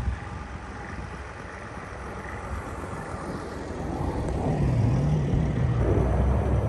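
4x4 Mercedes Sprinter van's diesel engine running as the van drives slowly through deep snow. It grows louder from about four seconds in as the van passes close by.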